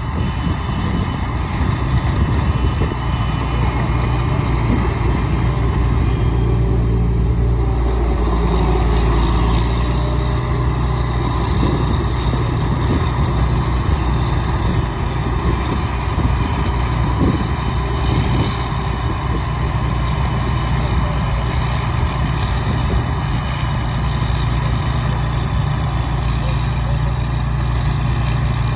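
Rice combine harvester's engine running steadily under working load, a continuous low mechanical hum with no pauses.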